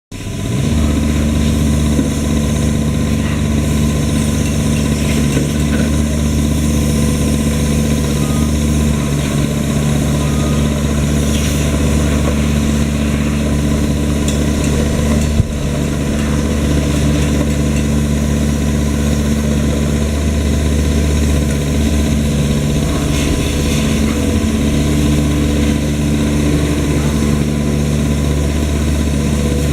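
Kubota KX-021 mini excavator's diesel engine running steadily near idle, with one sharp knock about halfway through.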